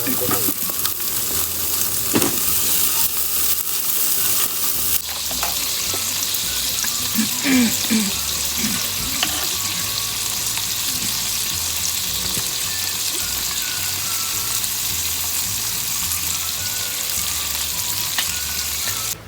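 Meat frying in a pan, a steady sizzle that gets brighter about five seconds in.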